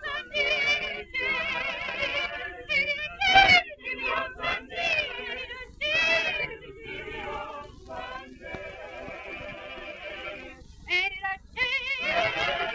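Mixed choir singing in phrases, the voices held on long notes with a wide vibrato, as recorded on an early 1930s film soundtrack.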